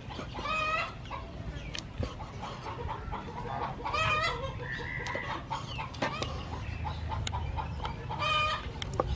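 A chicken calls three times, each a short pitched call well under a second long. Between the calls a cleaver knocks on a wooden cutting board as it slices cooked cuttlefish.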